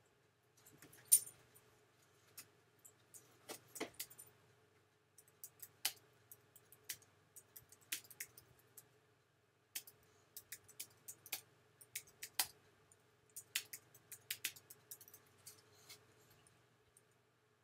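Computer keyboard being typed on: irregular, unhurried key clicks with a sharper click about a second in, over a faint steady hum.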